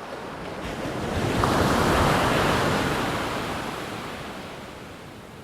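A single ocean wave breaking and washing up, swelling to its loudest about two seconds in and then fading away.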